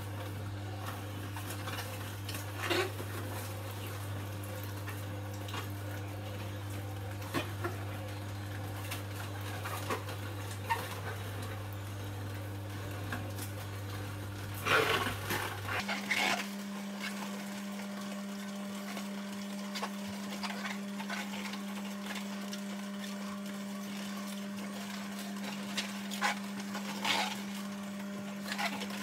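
Omega slow juicer's motor humming steadily while apple pieces are pushed into the feed chute, with scattered cracks and crunches as the auger crushes them. The hum shifts to a higher pitch about halfway through.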